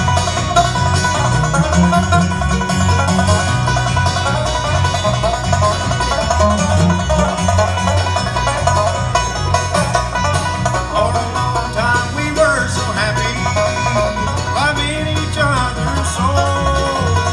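A bluegrass band playing live on acoustic guitars, banjo and upright bass, with a steady walking bass under fast picked string lines.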